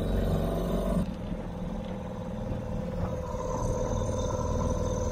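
Outboard motor of an inflatable dinghy running under way. About a second in, its sound drops and settles to a quieter, steady note.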